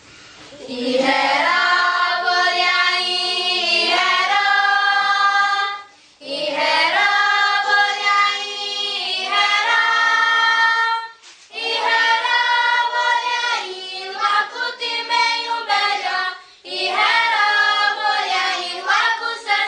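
Group of children singing a welcome song together without instruments, in four long phrases with short pauses for breath between them.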